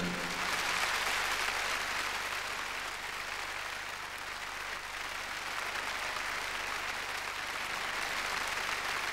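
A large hall audience applauding, long and steady, as a song ends.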